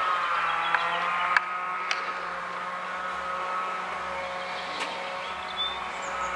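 A steady mechanical hum made of several fixed tones, like a motor or engine running, with a few sharp clicks about one and a half, two and five seconds in.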